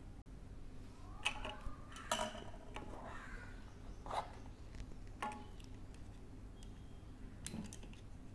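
Plastic camera accessories being handled and set down on a glass tabletop: a few scattered small clicks and knocks, the louder ones about a second, two seconds and four seconds in.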